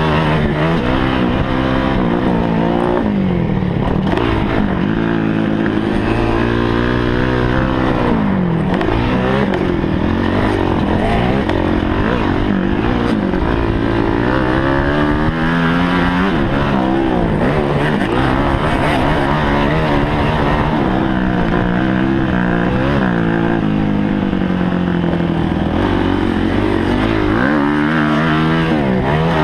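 Kawasaki KX250F motocross bike's four-stroke single-cylinder engine, heard close up from the rider's chest, revving up and dropping back again and again as it is ridden hard round a dirt track.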